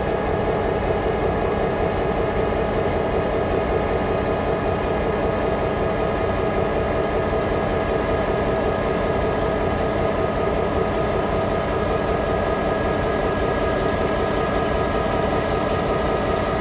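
CSX diesel locomotives of a yard shifter idling: a steady engine drone with several constant tones held over a low rumble, not changing in pitch or level.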